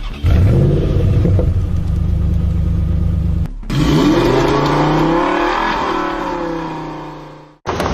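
Car engine revving and running loud and steady, cutting off abruptly about three seconds in. An engine sound then comes in whose pitch rises and falls, and it fades away to silence near the end, like a vehicle driving off.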